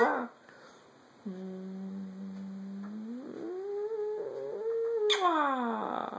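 A voice hums a low note held for about two seconds, then slides up to a higher held tone. Near the end it lets out a loud vocal sound that glides downward.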